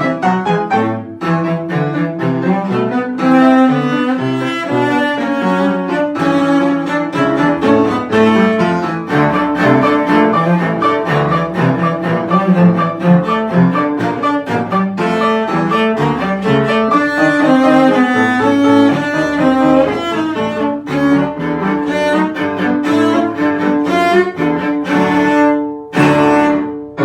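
Cello playing a quick, marching exam piece, note after note, with a short break near the end before new held notes.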